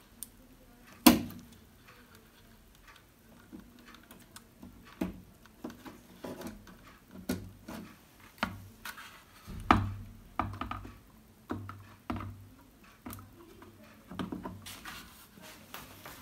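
Irregular plastic clicks and knocks from connectors and TV panel parts being handled and fitted, with the loudest knock about a second in. Soft rustling near the end.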